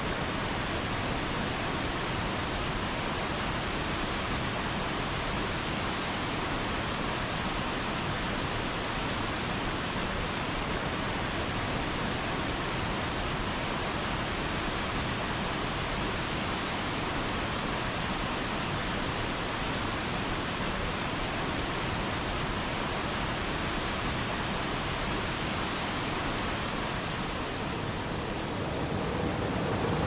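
Waterfall pouring into a rocky pool: a constant, even rush of falling water, with a deeper rushing sound coming in near the end.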